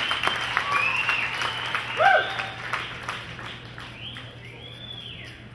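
Crowd clapping and cheering, with a few rising-and-falling whistles, dying away as the applause fades.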